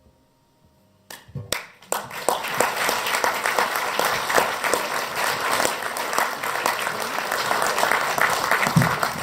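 Audience applauding at the end of a song: after a second of quiet, a few first claps break out, then the whole crowd joins in steady clapping.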